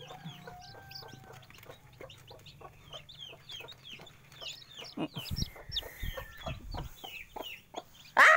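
Ayam kampung (native free-range chickens): chicks peeping in quick, high, falling chirps throughout, with a hen clucking. A few dull thumps come in the middle, and near the end the hen gives one loud squawk, falling in pitch, as a hand reaches toward her chicks.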